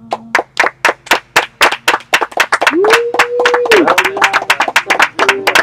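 A small group clapping, the individual claps quick and distinct, with one voice giving a long held cheer about three seconds in.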